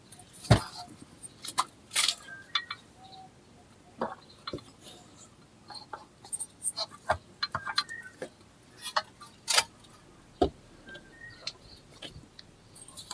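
Scattered metal clinks and knocks, a few of them sharp, as a car drive shaft is worked into its place in the gearbox.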